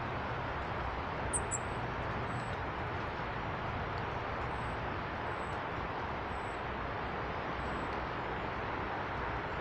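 Small birds giving short, very high-pitched calls: a quick cluster of chirps about a second in, then faint single notes every second or so, over a steady rushing background.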